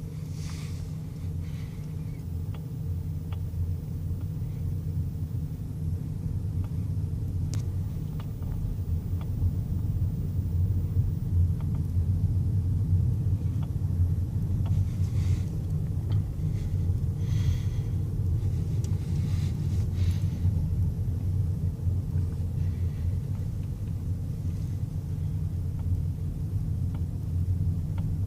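Steady low rumble of a 2012 Chevrolet Cruze Eco running, heard from the cabin, with a few faint sharp clicks (one clear one about eight seconds in) and several short hissy swishes. The clicks are the steering-wheel clicking that shows up only when the wheel is turned to the left.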